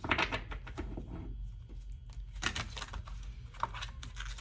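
Tarot cards shuffled by hand: a run of quick, papery flicks and riffles, strongest at the start and again about two and a half seconds in.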